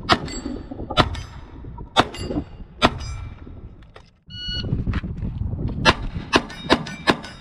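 A .22 LR Glock 44 pistol firing four aimed shots about a second apart. After a short break comes a brief electronic beep, and from about six seconds in a fast string of shots, roughly three a second.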